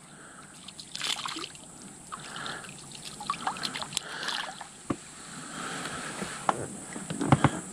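Water splashing and trickling close by, with a few sharp clicks from about five seconds in and more near the end: a hooked fish being played at the side of the boat.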